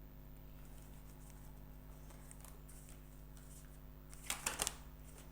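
A tarot card being flipped over and laid down, a quick crisp slap and rustle of card about four and a half seconds in, over a low steady hum.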